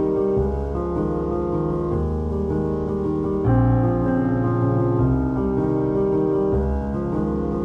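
Background piano music, slow sustained chords changing about every second.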